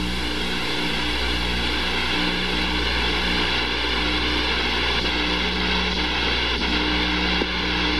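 Steady drone of aircraft engines on the carrier's flight deck, with a hum of several steady pitches under a constant rushing noise.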